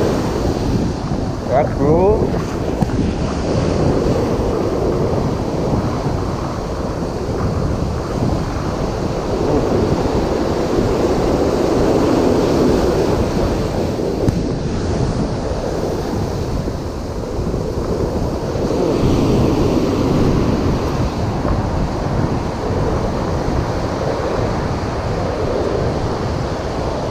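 Surf breaking and washing up a beach, swelling and easing every several seconds, with wind buffeting the microphone.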